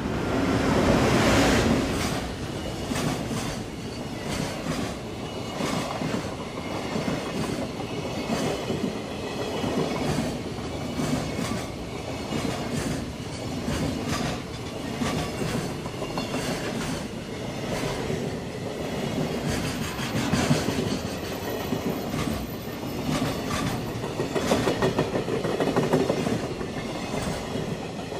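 Freight train's container wagons rolling past at speed, with a steady clickety-clack of wheels over the rail joints. It is loudest about a second in.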